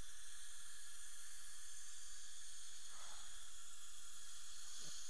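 Steady background hiss with a low hum, constant throughout, with no distinct events.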